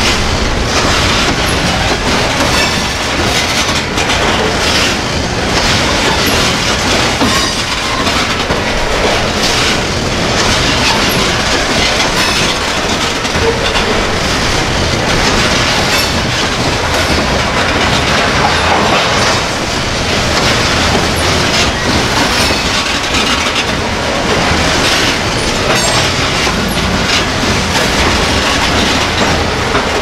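Freight train of covered hopper cars rolling past close by: a steady, loud noise of steel wheels on rail, with repeated clicks as the wheels cross rail joints.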